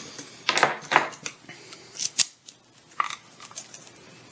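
Small metal clicks and short scrapes from a pin-tumbler lock cylinder and lockpicking tools being handled while the lock is taken apart, several sharp clicks spaced irregularly.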